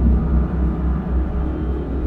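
Background music with a low, steady drone and long held tones.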